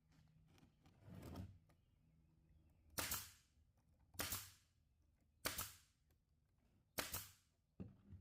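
Four sharp knocks, single strikes about a second to a second and a half apart, each with a brief ring after it, and a softer knock near the start.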